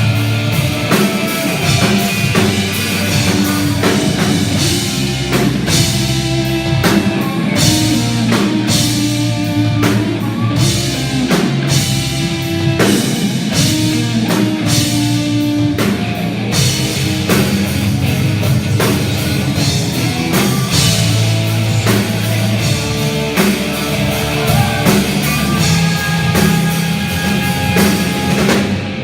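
A rock band playing loud and steady, with drum kit and electric guitar.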